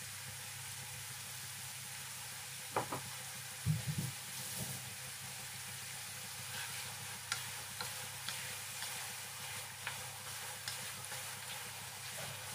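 Squid rings frying in sauce in a wok with a steady sizzle, while a spatula stirs them, scraping and knocking against the pan now and then. The loudest knocks come around three to four seconds in.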